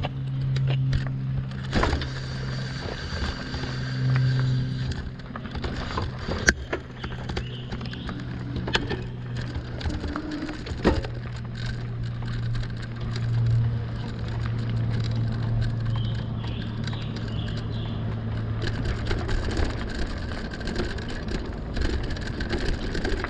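Lectric XP e-bike under way on a dirt trail: a steady low hum from the rear hub motor, with frequent short clicks and rattles from the bike over the rough surface.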